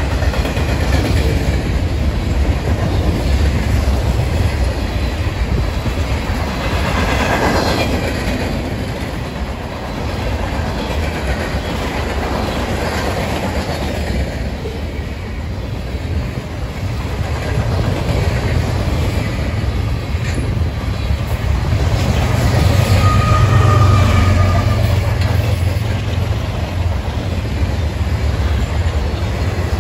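Freight cars of a CSX mixed manifest train rolling past: a steady low rumble of steel wheels on rail with clickety-clack over the rail joints. It swells somewhat louder a little past the middle.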